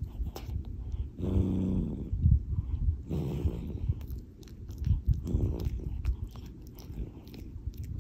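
Scottish Fold cat snoring in its sleep close to the microphone: a buzzy snore about a second in, a breathy exhale around three seconds, and another snore about five seconds in, with soft low thumps in between.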